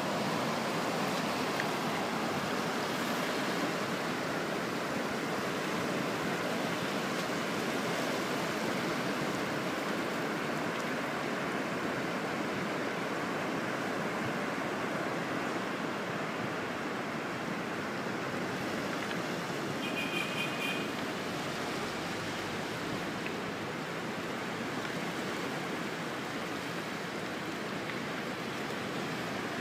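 Surf washing steadily onto a pebble beach: an even, unbroken hiss of breaking waves.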